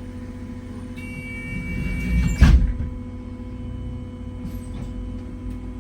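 Doors of a Wright Gemini 2 hybrid double-decker bus closing: a steady high tone for about a second and a half, then a loud thud as the doors shut, over the bus's steady hum.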